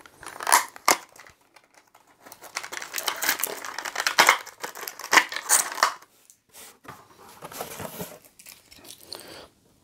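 Clear plastic packaging crinkling and rustling as a Funko Pocket Pop keychain is worked out of it by hand, with a couple of sharp clicks about half a second in and a dense crackly stretch in the middle, quieter handling near the end.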